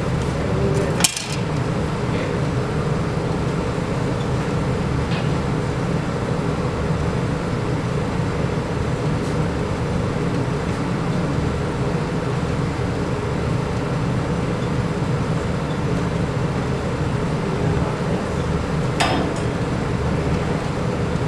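A steady, loud mechanical hum, with a sharp knock about a second in and another near the end.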